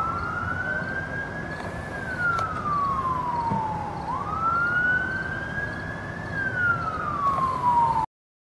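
Emergency vehicle siren on a slow wail, sliding up and down in pitch about every four seconds, twice over. The sound cuts off suddenly near the end.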